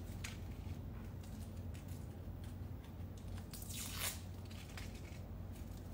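Dry, papery shallot skin being peeled off by hand: faint crackling and rustling, with a louder crackle about four seconds in.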